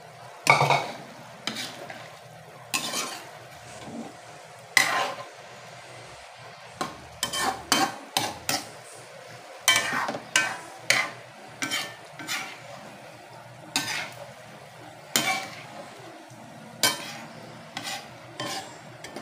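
Metal spatula scraping and clanking against a metal wok in irregular strokes as beef and broccoli are stir-fried, over a steady sizzle from the pan.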